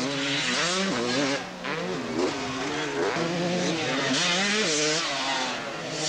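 Motocross bikes racing on a dirt track, engines revving up and falling back over and over as riders work the throttle and shift, with more than one bike heard at once.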